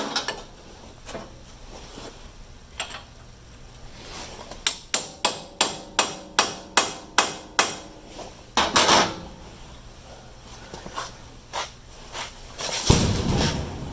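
Hammer tapping a hardened easy out into a drilled-out broken bolt, a run of about nine light, even taps about three a second. A single heavier strike follows, and a longer, louder knock comes near the end.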